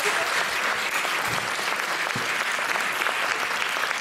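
Theatre audience applauding: many hands clapping together in a steady, dense patter.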